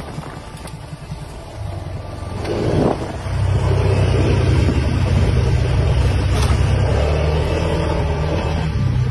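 Engine of an off-road side-by-side vehicle driving fast over rough ground. It grows louder about three seconds in, then runs steadily.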